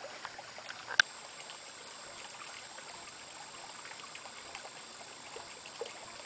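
Shallow creek water trickling steadily, with one sharp click about a second in.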